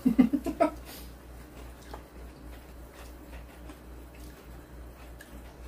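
A woman's short laugh, a few quick pulses at the start, then quiet eating with faint clicks of chopsticks over a low steady electrical hum.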